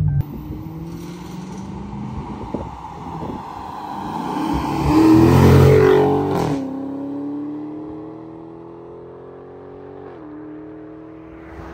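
Dodge Charger Scat Pack's 392 (6.4-litre) HEMI V8 on its stock exhaust, accelerating past in a flyby. The engine note rises in pitch and is loudest about five to six seconds in, then drops off suddenly to a steadier, quieter drone as the car pulls away, with a brief dip in pitch near ten seconds.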